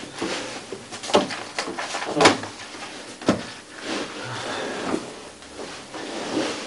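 Books and papers being handled on a wooden coffee table: rustling pages and a few sharp knocks, the loudest a little over one, two and three seconds in.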